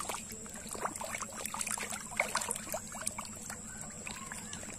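Pangasius catfish feeding at the water surface, making many small splashes and slurps as they snap up floating feed pellets. A steady hum runs underneath.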